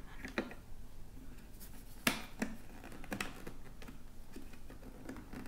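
Sharp plastic clicks and small knocks from the visor pivot mechanism of a full-face motorcycle helmet as it is worked loose by hand, a few clicks in all, the loudest about two seconds in.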